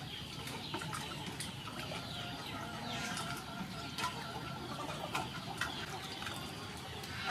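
Chickens clucking in the yard, with scattered small clicks and wet handling sounds as raw chicken drumsticks are worked by hand in a steel bowl.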